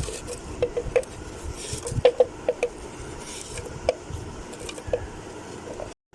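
Scattered light knocks and clicks of ingredients and utensils being handled at a blender jar, with a few sharper taps about two seconds in.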